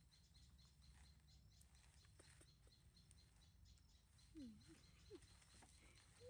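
Near silence: a low steady hum with faint, rapid chirping, and a few soft gliding calls about four to five seconds in.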